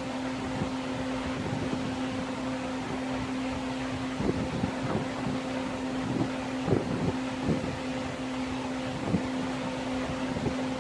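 A steady mechanical hum from a fan or motor, with irregular soft knocks and rubbing as the vinyl seat cover is handled and its cut edges are pressed together.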